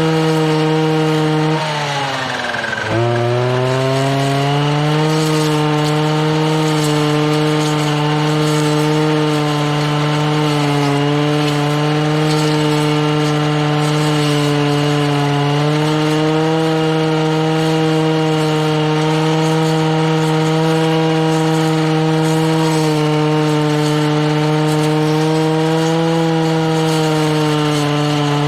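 Husqvarna 240R brushcutter's two-stroke engine running at steady high revs on its freshly rebuilt Walbro carburettor. About two seconds in, the revs drop sharply and climb straight back.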